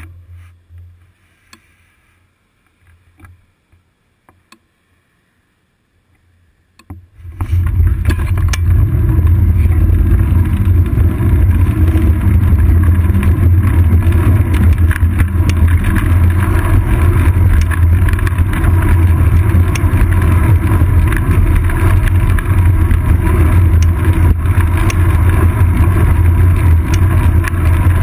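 Wind and road rumble on a seat-post-mounted GoPro's microphone as the bicycle gets moving, a loud steady low rush that starts suddenly about seven seconds in. Before that there is only a faint hush with a few light clicks while the bike stands still.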